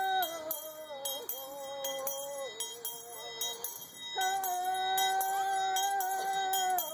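A woman singing an Indian Shaker song alone in long held notes, accompanied by a handbell shaken in a quick steady beat. The longest note starts a little past halfway and is held for nearly three seconds.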